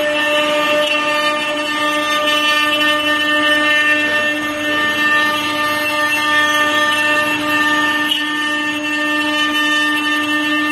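Wood CNC router with several high-speed spindles running at a steady, high-pitched whine while its bits carve wooden figures turning on rotary axes, with a hiss of cutting noise underneath.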